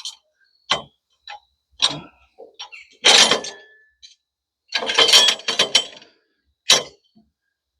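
Metal clanks and scraping as a log dog assist and a turning hook are set against a pine log on a portable sawmill: single knocks about a second apart, with longer clattering scrapes about three and five seconds in.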